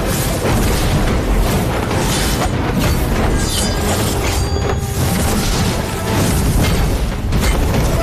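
Music under repeated booming impacts and energy-blast sound effects from an animated sword-and-magic fight.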